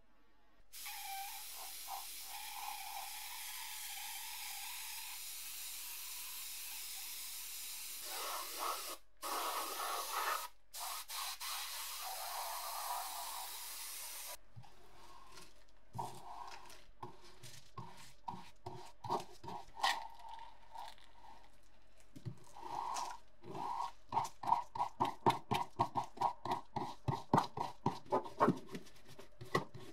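A spray bottle spraying in a steady hiss with two brief breaks, then a stiff brush scrubbing caked dirt and rust on a charger's casing in short scraping strokes that quicken to about two or three a second near the end.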